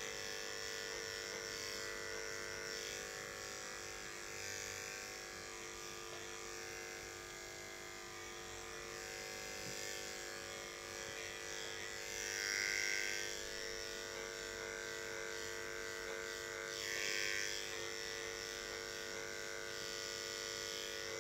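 Corded electric pet clipper running with a steady hum as it shaves a Maine Coon cat's long coat. It briefly grows louder twice, about twelve and seventeen seconds in.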